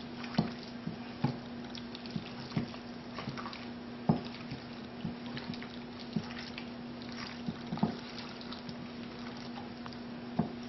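A gloved hand kneading chicken pieces in an oily tandoori marinade in a glass bowl: irregular wet squelches and sharp clicks as the meat is worked. A faint steady hum runs underneath.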